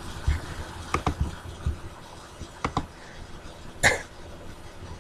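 Clicks of a computer mouse: two quick double-clicks about a second and a half apart, then a single sharper click near the end, over faint low bumps.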